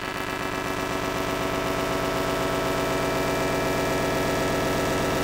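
Electronic time-warp sound effect: a dense, steady buzzing drone of many stacked tones over static hiss. It starts abruptly and grows slightly louder.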